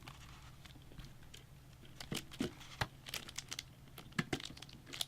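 Scattered light clicks and crinkling of plastic from handling PC parts, the memory modules and their packaging, over a faint steady low hum.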